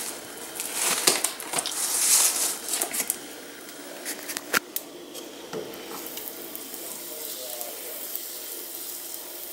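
Butter sizzling in a saucepan while a wooden spatula stirs and scrapes through it, busiest in the first few seconds, with one sharp knock about four and a half seconds in, then a steadier, quieter sizzle.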